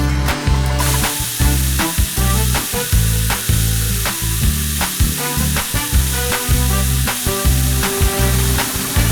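Steady hissing sound effect that starts abruptly under a second in, over bouncy cartoon background music with a repeating bass line.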